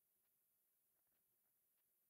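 Near silence: no audible sound, only a faint hiss at the noise floor.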